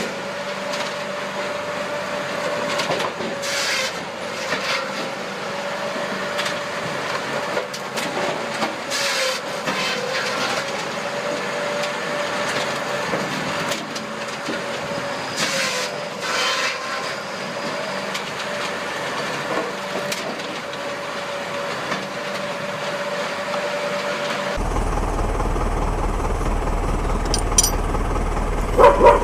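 A machine running with a steady, slightly wavering drone, broken every few seconds by short hissing bursts. About 25 s in the sound cuts to a steady low hum, and a dog barks a few times near the end.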